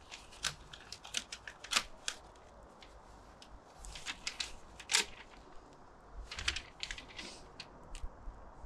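Protective packaging being pulled and peeled off a new bicycle's frame by hand: a run of irregular sharp clicks and crinkles of paper and plastic wrapping, the loudest about two and five seconds in.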